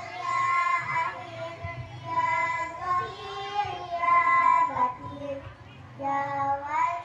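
A child's voice singing a song in long held notes, phrase after phrase, with a short break about five seconds in.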